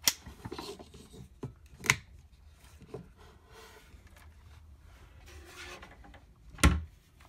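Handling noise of a plastic clamp meter and hands in a wooden cabinet: a few sharp clicks and some rubbing, then a heavy thump near the end.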